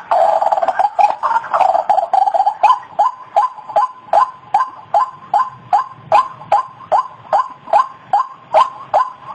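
White-breasted waterhen calling: a crowded jumble of notes at first that settles after a couple of seconds into a steady run of short, repeated notes, about three a second.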